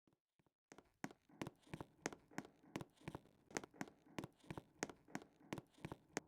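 A few faint ticks, then a steady run of sharp clicks, about three a second.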